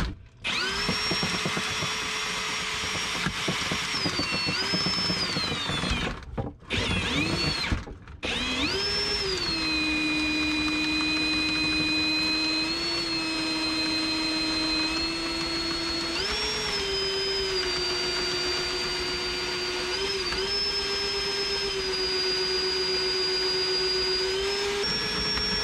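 RIDGID cordless drill spinning a RIDGID PowerSpin drain snake's cable into a clogged drain pipe: a steady electric motor whine. It stops briefly twice, around six and eight seconds in, and its pitch steps down and back up several times while it runs.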